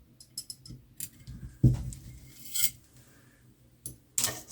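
Small metal air-pistol parts being handled at a workbench: light clicks and clinks, with a sharper knock about one and a half seconds in.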